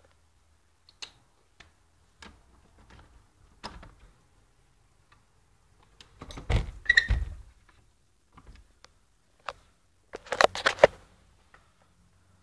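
Scattered clicks and knocks, with two louder rattling clusters about six to seven and ten to eleven seconds in.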